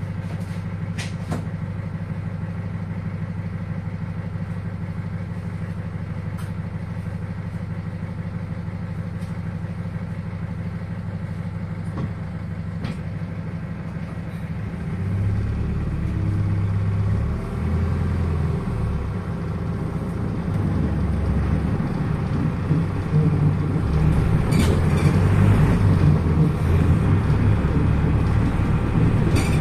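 PAZ-320402-05 bus's diesel engine heard from inside the cabin, idling steadily for the first half, then pulling away, louder and changing in pitch under load. A few sharp knocks and rattles of the body come about 24 seconds in and again near the end.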